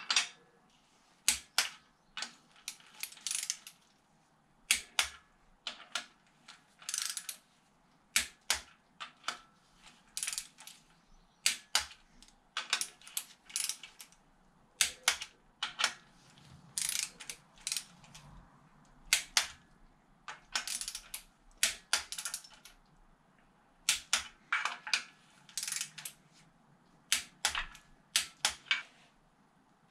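Socket ratchet and torque wrench clicking in quick runs of a few clicks, with short pauses between, as the oiled bottom-end bolts of a Peugeot TU aluminium engine block are run down and brought to torque.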